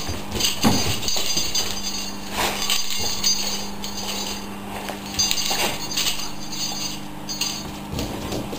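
Irregular clinks and knocks from a spring-pole tug toy as an American bulldog puppy yanks and shakes the hanging mop toy, over a steady low hum.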